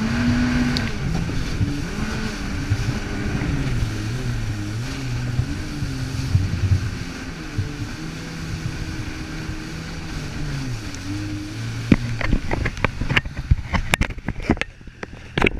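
Jet ski engine running under way, its pitch rising and falling with the throttle, over a rush of water and wind. About three quarters of the way through the engine dies away and a run of sharp clicks and knocks follows.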